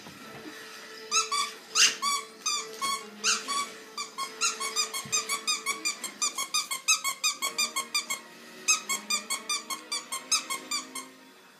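Squeaky dog toy squeezed over and over in quick succession, about three to four sharp squeaks a second, with a brief pause near the end.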